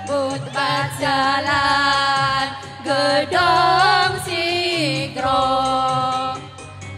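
Women's choir singing together in phrases of long held notes, with short breaks between phrases.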